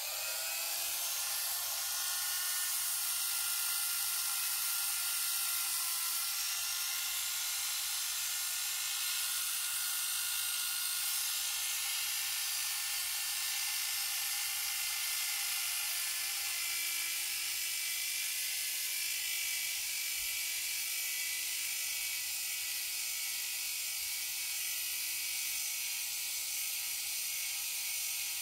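Handheld rotary tool running steadily at high speed with a felt polishing wheel, buffing a die-cast toy car's axle held against it with polishing compound: a continuous high whine.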